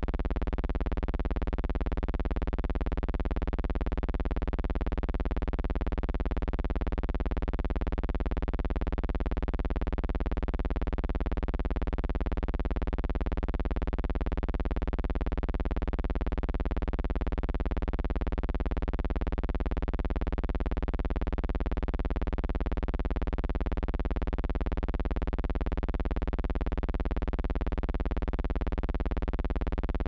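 A steady, unchanging electrical buzz with many evenly spaced overtones. It stays the same through every shot and has no link to anything in the pictures: a hum track rather than sound of the scene.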